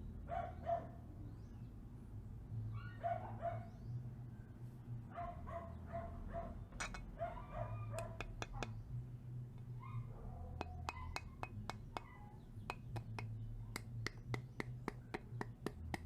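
A dog barking in several short bouts, followed in the second half by a run of sharp clicks, several a second.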